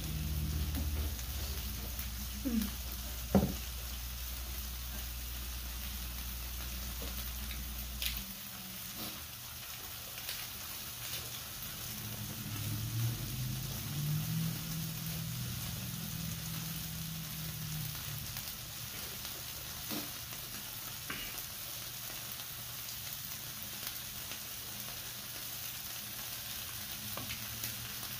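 Beef pieces sizzling steadily on a tabletop grill plate, with a few sharp clicks, the loudest about three seconds in. A low hum stops about eight seconds in.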